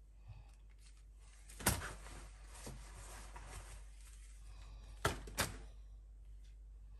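Groceries being unpacked onto a kitchen counter: a sharp knock as an item is put down, packaging rustling, then two quick knocks near the end.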